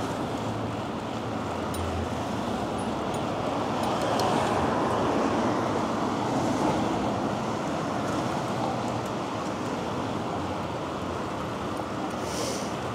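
Wind rushing over the microphone and road traffic noise from a moving bicycle in city traffic, a steady rush that swells in the middle. A short hiss sounds near the end.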